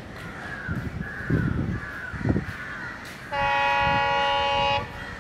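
Multi-tone locomotive horn sounding one steady blast of about a second and a half, a little past halfway through, as a train approaches. Crows caw before it.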